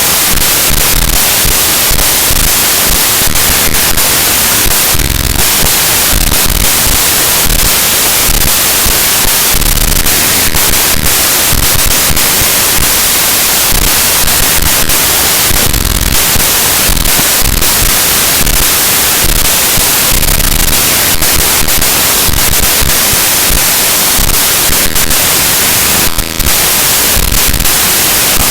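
Loud, harsh static-like noise with crackling and shifting texture: a file's raw bytes played back as audio samples, so the data sounds as noise. The noise cuts out briefly about 26 seconds in.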